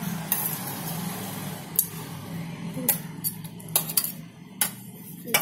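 Scattered sharp clinks of a metal spoon and dishes being handled, about seven in a few seconds, over a low steady hum.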